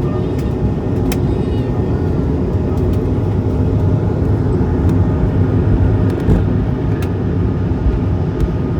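Steady loud rumble of an Airbus A220-300's engines and airflow heard inside the passenger cabin, with a few light clicks.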